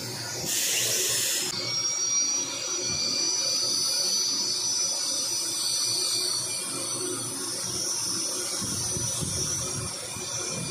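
High-speed dental drill whining steadily as it cuts a tooth, with a short burst of hiss as it starts and the constant hiss of a suction tip in the mouth.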